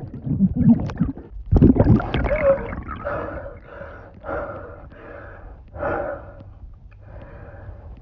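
A woman voice-acting drowning: strained, bubbly gurgles and mouth noises, then a string of ragged gasping breaths, each one a little weaker.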